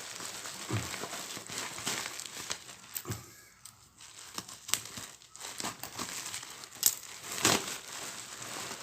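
Plastic packaging crinkling and rustling as small boxed nano spray units are handled and unpacked, with irregular sharp crackles and a brief lull about halfway through.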